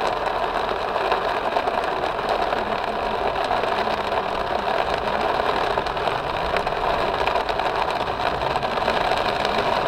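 Torrential rain drumming steadily on a car's windshield and roof, heard from inside the cabin while water sheets down the glass.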